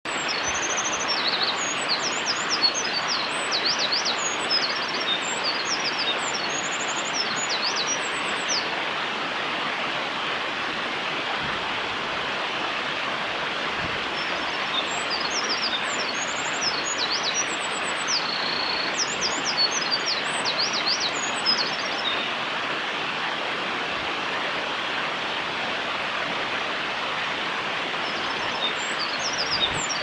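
Eurasian wren singing: two long, rapid songs of high trills and piercing notes, each lasting about seven to eight seconds, with a third beginning near the end. Under them runs a steady rush of stream water.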